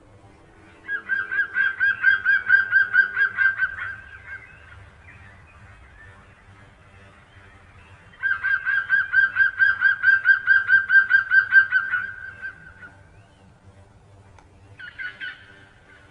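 A bird calling in two long runs of rapid, evenly repeated honking notes, about six a second, a few seconds apart, with a shorter burst near the end.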